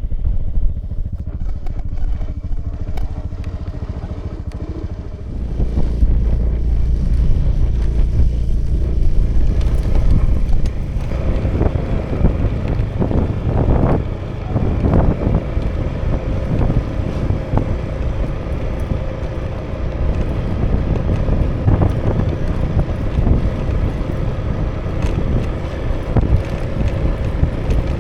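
2018 Honda Vision scooter's small single-cylinder engine running under way, with wind rumbling over the microphone. The rumble gets louder about five seconds in, and a steady mid-pitched whine holds from about halfway.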